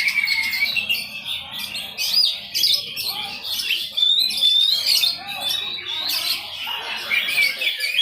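Several songbirds singing at once: overlapping quick high chirps, trills and warbling phrases with no break.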